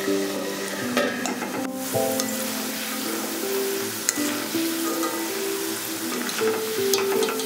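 Cornstarch-coated corn kernels deep-frying in hot oil in a steel wok, a steady bubbling sizzle, with a sharp tick about four seconds in. Background music of held notes plays over it.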